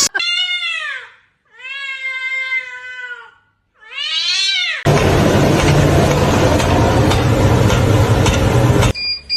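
A cat meowing three times, the middle meow long and drawn out. Then a loud steady rushing noise for about four seconds that cuts off suddenly.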